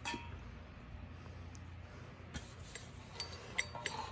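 Light clinks and small taps of small hard parts being handled: one sharp click at the start, then a string of little clinks with brief ringing pings in the second half, over a faint steady low hum.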